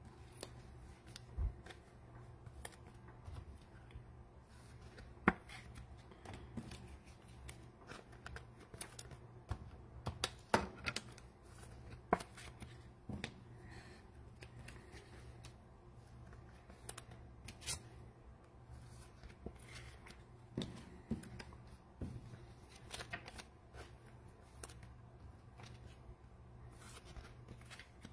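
Trading cards being handled and sorted on a table: scattered light clicks and rustles at irregular intervals, over a low steady hum.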